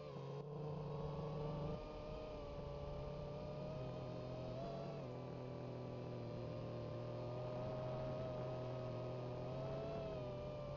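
FPV quadcopter's brushless motors and propellers whining, a steady whine of several tones that steps up and down in pitch a few times as the throttle changes.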